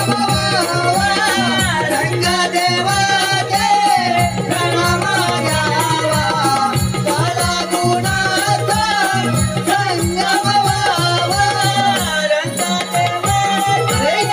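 Konkani Naman folk music: a high-pitched voice sings a wavering, ornamented melody over fast hand-drum beats and a steady jingling percussion.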